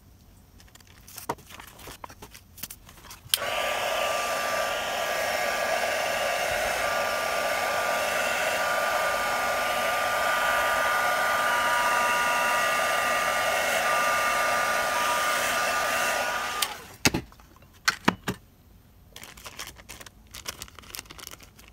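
Embossing heat gun switched on about three seconds in, running steadily with a fan hiss and a constant whine for about thirteen seconds, then switched off, as it melts embossing glaze on tissue paper. A few clicks and light paper-handling sounds come before and after it.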